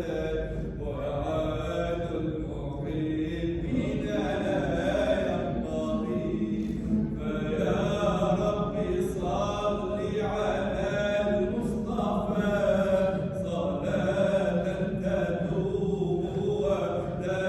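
A group of voices chanting Sufi dhikr at a hadra, repeating short phrases in a steady rhythm.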